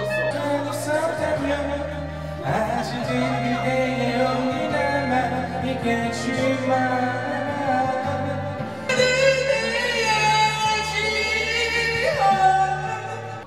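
A man singing into a karaoke microphone over a karaoke backing track with a steady bass line. About nine seconds in the music gets louder and fuller, and it dies away near the end.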